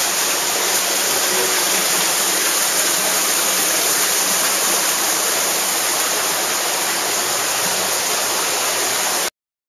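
Steady rush of underground water in a cave, a stream or small waterfall, cutting off suddenly near the end.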